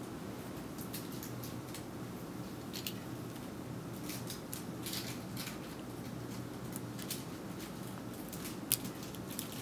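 Small, scattered clicks and taps of hand tools working on the parts of an iPhone 5 being taken apart, with one sharper click near the end, over a steady low room hum.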